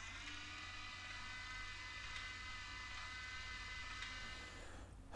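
Faint, steady whine of a small electric motor, starting just after the start and cutting off shortly before the end.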